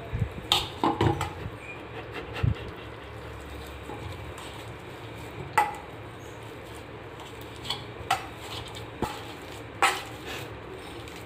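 Metal potato masher working boiled potatoes in a stainless steel bowl: soft squashing with irregular clinks and knocks of metal on the bowl, a few of them sharper than the rest.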